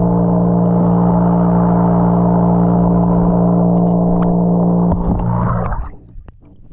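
A loud, steady, deep droning tone with many overtones, held without change, that swells slightly and cuts off about five and a half seconds in.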